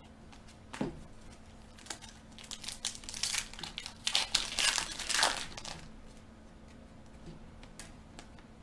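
A foil trading-card pack wrapper crinkling and tearing as it is pulled open by hand, in a run of crackles from about two seconds in to about six seconds, loudest past the middle. The pack's seams are stiffly glued and hard to tear open.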